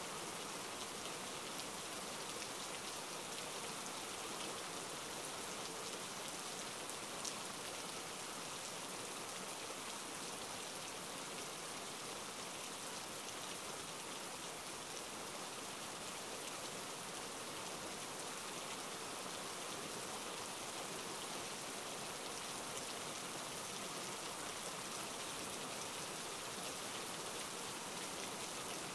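Steady rain falling, an even hiss with no let-up, and one slightly sharper tap about seven seconds in.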